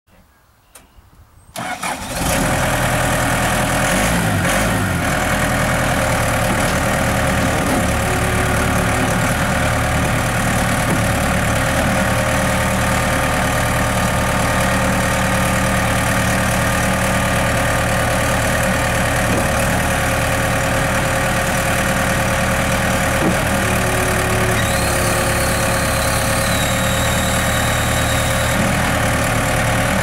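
Case 1845C skid steer loader's diesel engine starting up about a second and a half in, then running steadily.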